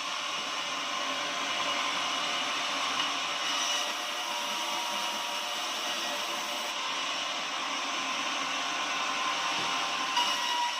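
Sawmill machinery running steadily: a continuous mechanical noise with a steady whine, its upper hiss dropping away about seven seconds in and returning near the end.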